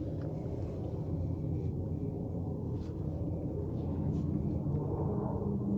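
A steady low mechanical rumble with a humming tone that grows stronger near the end.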